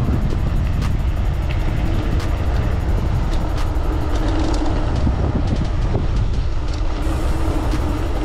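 Wind rumbling on the microphone of a moving mountain bike, with scattered clicks and rattles from the bike over rough ground.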